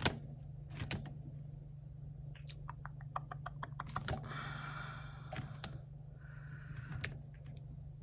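Clear plastic pouches and sheets in a six-ring budget binder being flipped by hand: light clicks and a quick run of ticks, with a soft rustle a little past the middle, over a steady low hum.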